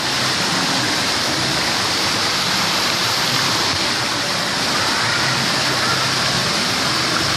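Steady rushing and splashing of a water fountain, heard close up.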